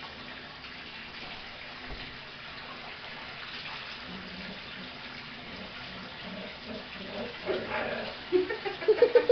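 Water running into a bathtub and splashing as a dog is washed in it by hand. Near the end comes a loud, quick run of short pitched vocal sounds.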